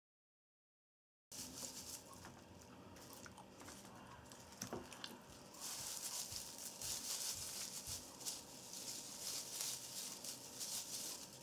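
Silent for about the first second, then faint rustling and crackling as sprigs of fresh creeping thyme are rubbed by hand over raw meat; the rubbing grows louder about halfway through.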